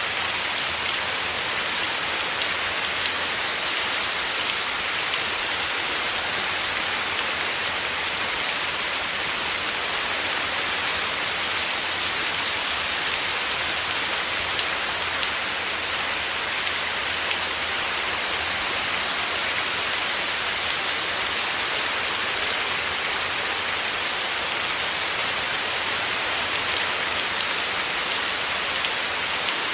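Heavy rain falling steadily: a dense, even hiss that holds without breaks or swells.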